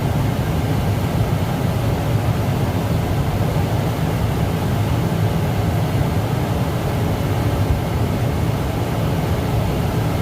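Farm tractor pulling a grain cart at field speed, engine running with a steady low drone, while the combine alongside unloads grain into the cart on the go.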